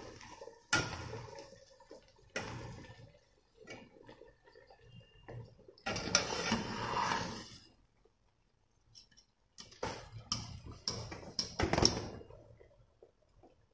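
Wire spider strainer scooping parboiled basmati rice out of a pot of boiling water, the water splashing and draining back through the mesh, with a few light knocks of the metal strainer against the pots.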